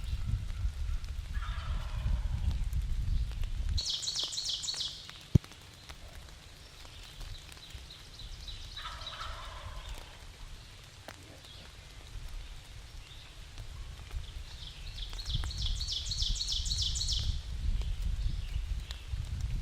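Wild turkey gobbler gobbling twice, a rapid rattling call about four seconds in and again about fifteen seconds in, answering in spring. A low rumble of wind or rain on the microphone comes and goes underneath, with a single sharp click about five seconds in.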